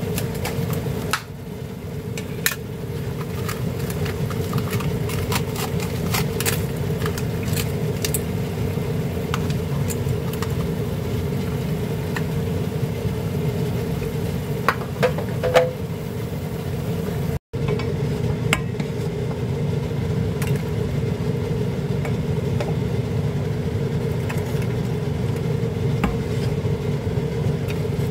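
Red scallops steaming and sizzling in a frying pan over a steady machine-like hum, with scattered light clicks of shells and utensil against the pan; the sound breaks off for an instant about two-thirds through, then carries on the same.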